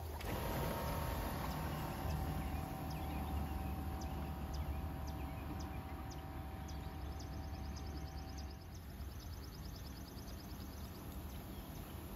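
Outdoor ambience: a steady low hum with a faint whine that fades out about nine seconds in, and birds chirping, with a rapid high trill late on.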